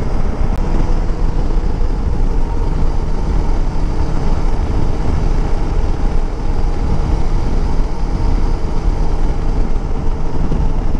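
Bajaj Dominar 400's single-cylinder engine running steadily while the motorcycle is under way, heard under steady wind rush on the microphone.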